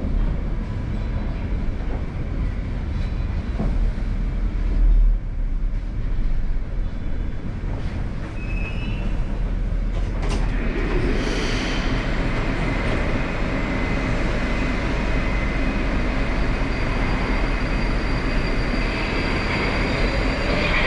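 Moskva-2020 metro train heard from inside the car, rumbling along as it comes into a station and stops. About halfway through the rumble grows louder and a thin high electric whine joins it.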